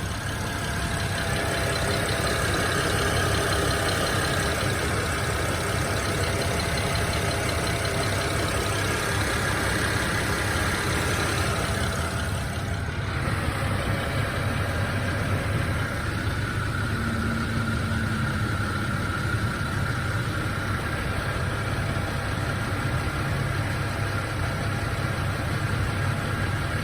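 BMW E90 engine idling steadily while warming up, with a rough idle that the owner attributes to misfires.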